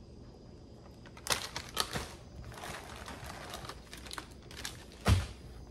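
Plastic bait packages rustling and clicking as they are handled, starting about a second in, with a louder thump near the end.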